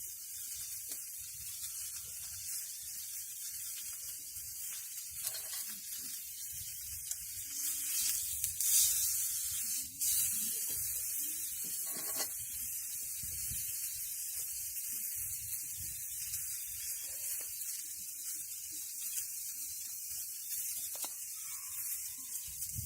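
Food sizzling in a frying pan: a steady high hiss with faint crackles, and a few soft knocks of the pan or utensils.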